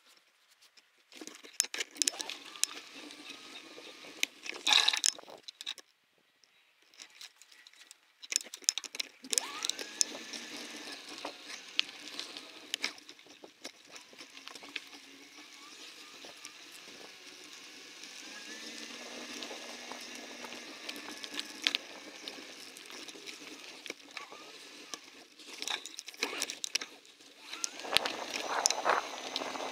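Bicycle ridden over a woodland trail: tyres crunching over the ground, and the bike clicking and rattling over bumps. It goes quieter for a couple of seconds about six seconds in.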